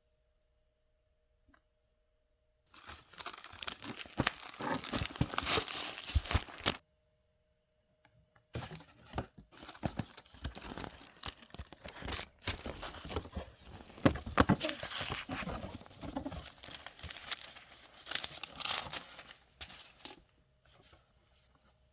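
Packaging being unwrapped by hand: wrapping torn and crinkled in two spells, the first about four seconds long and cut off abruptly, the second running about eleven seconds.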